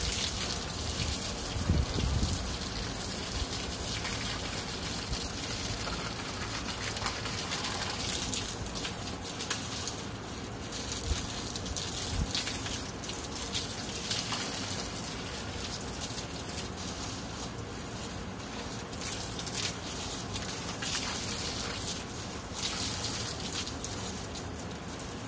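Garden hose spraying a steady stream of water onto the base of a fence post, splashing onto and soaking dry-poured post-hole concrete mix so it will set.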